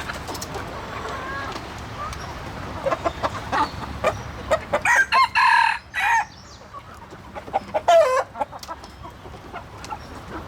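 Rooster crowing once, about five seconds in, with a shorter loud call about two seconds later, among chickens clucking.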